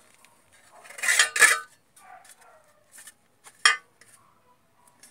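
Clanking of thin painted galvanized sheet steel being handled on a sheet-metal bending brake: a loud double clatter about a second in and a single sharp ringing clank just past the middle, with a few faint knocks between.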